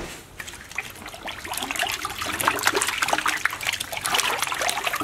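Water splashing and sloshing in a stainless steel sink as hands scrub a large whole fish in it, a dense run of small splashes that grows louder from about a second and a half in.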